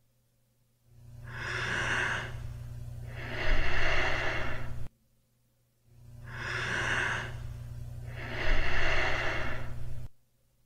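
Human breathing demonstrating bradypnea, an abnormally slow breathing rate: two slow, deep breaths about five seconds apart. Each breath is a soft rise followed by a louder, rougher part that cuts off suddenly.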